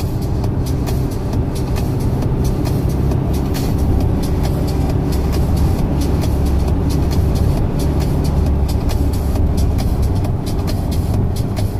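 Steady engine drone and tyre noise of a moving vehicle, heard inside its cabin while driving.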